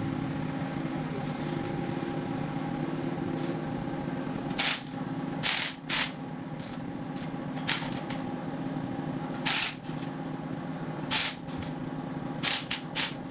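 Steady mechanical hum with a string of short, sharp metallic clacks, about a dozen, some in quick pairs and triplets, bunched toward the middle and near the end.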